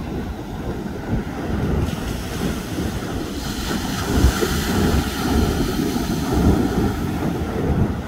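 Ocean surf on a sandy beach: about two seconds in, a wave breaks close by and its hiss of foam swells to a peak near the middle, then washes out. Steady wind buffets the microphone with a low rumble throughout.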